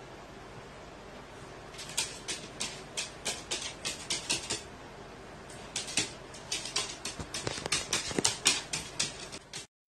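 A carrion crow's claws clicking on a wooden floor as it walks and hops about: two runs of quick, irregular sharp ticks with a short pause between them.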